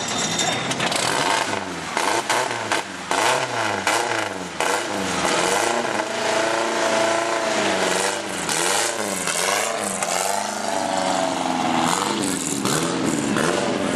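Riley 12/4 racing car's 1.5-litre four-cylinder engine being revved again and again, its pitch rising and falling with each blip of the throttle. Near the end the car pulls away.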